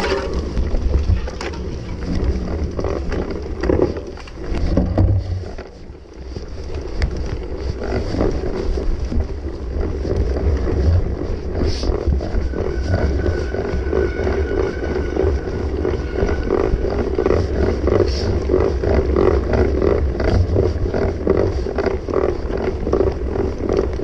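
Mountain bike ridden fast over rough dirt singletrack, heard from a camera riding with it: steady wind rumble on the microphone and constant rattling and clatter from the bike and tyres over bumps and roots, easing briefly about five seconds in.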